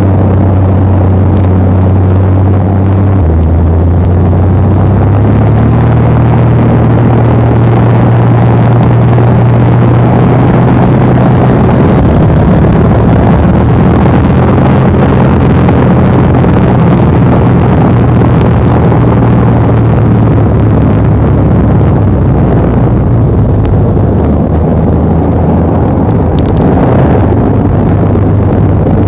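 Cessna L-19 Bird Dog's six-cylinder piston engine and propeller droning steadily in cruise, heard loud from inside the cabin with rushing air. Its pitch shifts slightly a few seconds in, then holds steady.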